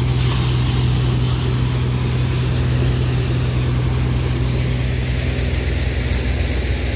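Shaktiman multicrop thresher running steadily while threshing castor, a constant low machine hum with an even rushing hiss of the drum, fan and seed flow.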